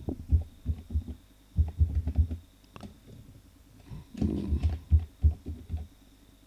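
Typing on a computer keyboard: dull, thudding keystrokes in several quick runs with short pauses between them.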